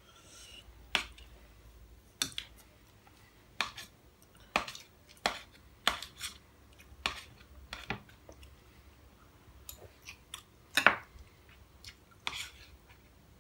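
Metal spoons clinking and scraping against ceramic bowls in about a dozen irregular sharp clicks, the loudest about three-quarters of the way through.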